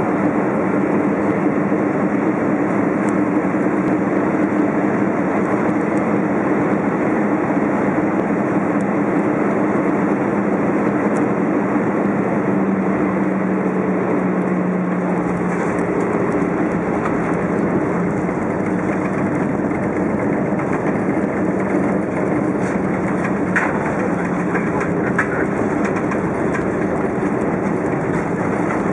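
Steady cabin noise of an Airbus A319 in flight on approach to landing: jet engine and airflow rumble with a low hum that dips slightly in pitch for a few seconds midway.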